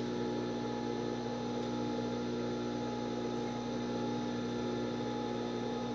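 Steady hum of an industrial overlock machine's motor running idle, with no stitching chatter, while the fabric is lined up by hand.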